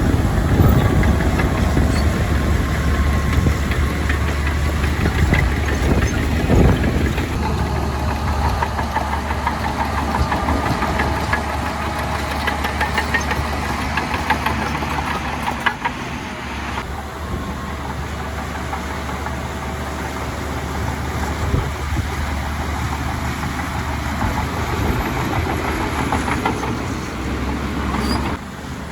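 Heavy earthmoving machinery with its diesel engine running steadily, with scattered knocks and rattles over the low engine hum. The sound thins out about halfway through and drops off suddenly near the end.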